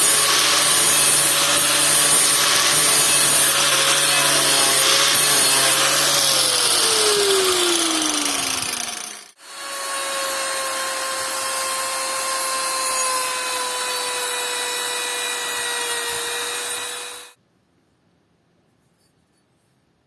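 Electric power tool running against wood, a loud rasping noise over a steady motor whine. About six seconds in the whine falls in pitch as the motor winds down; the tool runs again from about nine and a half seconds and cuts off abruptly near the end.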